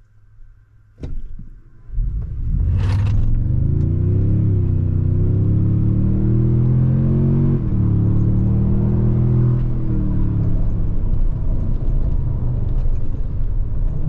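Cabin sound of a 2022 Toyota Tundra's twin-turbo V6 at full-throttle acceleration from a stop, starting about two seconds in, with the engine sound enhancement on, so a synthesized deeper exhaust note plays through the cabin speakers. The note climbs with engine speed, drops at upshifts about four and a half and seven and a half seconds in, and settles lower near the end.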